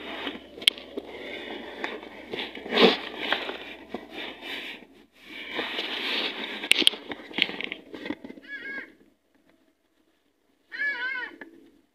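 Irregular crackling and rustling with sharp clicks for about nine seconds, then a cat meows twice briefly, the second meow about two seconds after the first.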